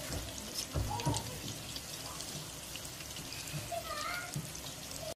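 Batter-coated squid pieces deep-frying in hot oil with curry leaves: a steady sizzle full of small crackles.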